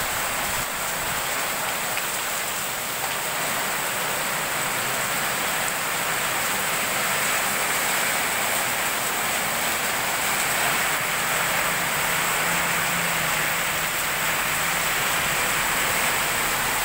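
Heavy rain falling steadily in a downpour, a constant even rush of water on the street and surfaces, with no letup.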